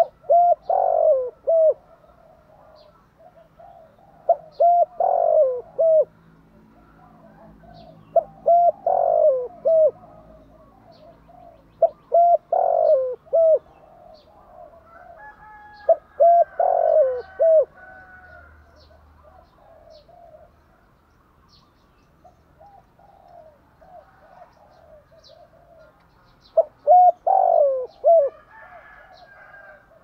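Spotted dove cooing close by, a repeated phrase of several short, rising-and-falling notes given six times about every four seconds, with a longer pause past the middle.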